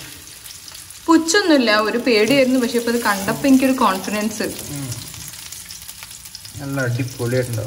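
Food sizzling as it fries in a pan, with a person's voice rising over it, drawn out and wavering like singing or humming, from about a second in for some three seconds and again near the end.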